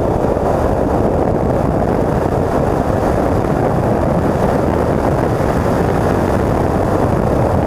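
1959 Triumph TR3a's four-cylinder engine running steadily under load at speed, mixed with wind rushing over the open cockpit.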